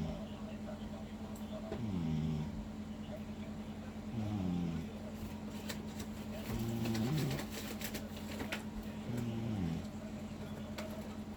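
Snoring: a pitched snore that falls in pitch on each breath, about every two and a half seconds, four times, over a steady low hum.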